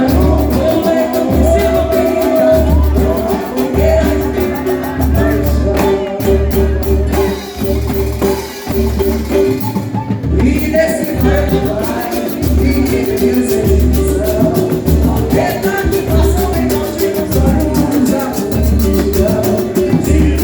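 Live samba band playing, with a lead singer over a steady low drum beat.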